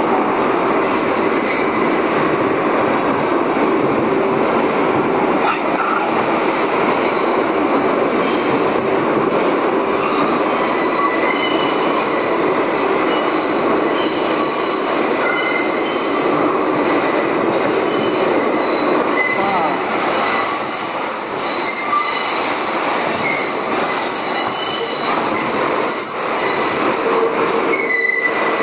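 R142A subway train running through the tunnel of the City Hall loop: a steady loud rumble of wheels on rail, with high-pitched wheel squeal coming and going as the cars take the loop's tight curve.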